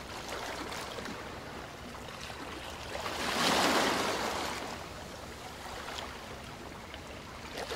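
A steady rushing noise with no tone to it, swelling about three seconds in and easing off again by about five seconds.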